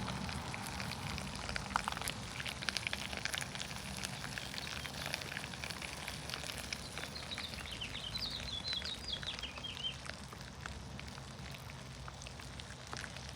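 Milkfish sizzling and crackling on a grill, a dense patter of small pops that eases slightly toward the end. A bird chirps repeatedly for a few seconds in the second half.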